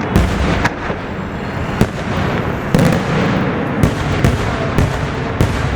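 Fireworks display heard from close by: a continuous dense din of bursts and crackle, cut by sharp bangs every half second to a second.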